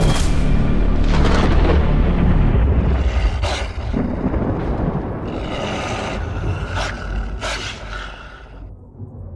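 Cinematic logo-intro music: a heavy, deep bass boom under a handful of sharp impact hits, fading down over the last few seconds and cutting off at the end.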